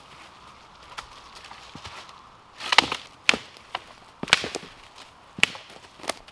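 A series of sharp, irregular knocks and cracks, about six in three and a half seconds, some followed by a short scrape.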